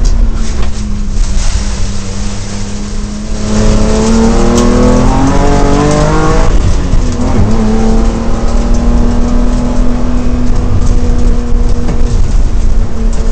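BMW M3 race car's engine heard from inside the cockpit, running hard at a steady pitch, then revving up sharply for about three seconds. The pitch drops abruptly at an upshift about six and a half seconds in, then the engine pulls steadily again.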